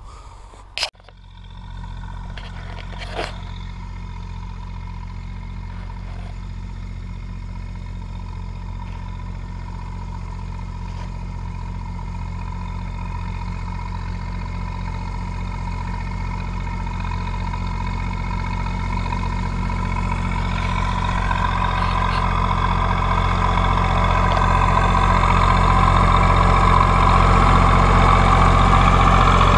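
Tractor diesel engine running steadily under load, growing gradually louder, after a sharp click about a second in.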